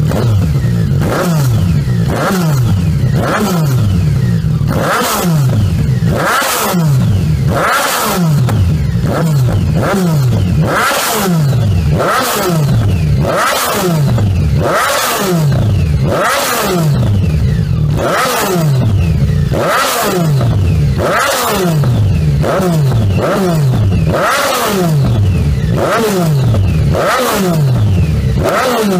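Yamaha MT-09's 847 cc inline-three engine blipped repeatedly through a Scorpion Serket Taper carbon slip-on exhaust, about one quick rev a second, the pitch falling away after each. A sharp crack from the exhaust comes with each blip.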